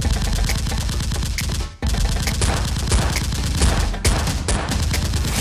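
Automatic machine-gun fire sound effect: rapid, continuous shots, broken by a very short pause just before two seconds in and a brief dip at about four seconds.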